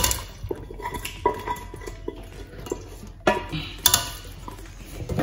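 Cooked goat meat being tipped from one stainless steel pot into another and stirred into a thick palm-oil sauce with a wooden spatula: scattered knocks and clinks of pot against pot and wet scraping and stirring.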